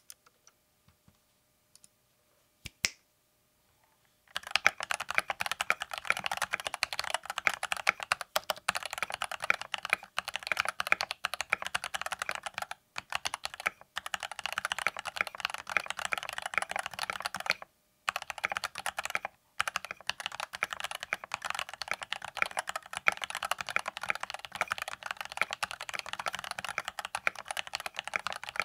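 Typing test on a Keychron V1 75% mechanical keyboard with stock K-Pro Brown tactile switches and double-shot PBT keycaps in a solid ABS plastic tray-mount case. After a few single key clicks, steady fast typing starts about four seconds in and runs on with a few short pauses. The sound is loud and clacky, since the plastic case absorbs little of it.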